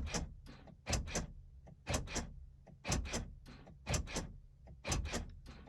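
Regular clicking, about one click a second, in the cab of a Chevy Silverado as the driver tries to start it. The engine does not crank, part of an intermittent no-crank electrical fault.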